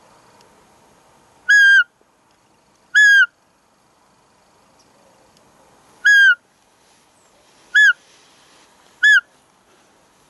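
Roe deer call imitating a doe's high-pitched peep (fiep), used to draw a rutting buck. Six short, loud, whistled peeps come one to three seconds apart, each dropping in pitch at its end.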